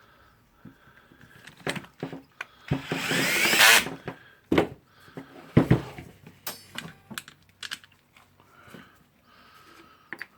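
A power screwdriver runs for about a second, driving in a screw, a little under three seconds in. Sharp clicks and knocks of metal parts and tools being handled come before and after it.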